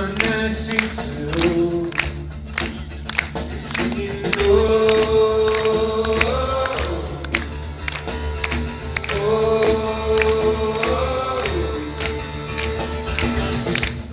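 Live acoustic rock performance: several voices singing long held notes that step up and down in pitch, over a steady percussive beat of about two strokes a second.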